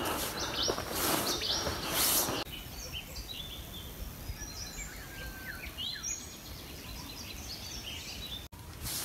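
Footsteps on a dirt forest trail for about two and a half seconds, then a sudden drop to a quieter background in which several birds chirp in short, quick notes.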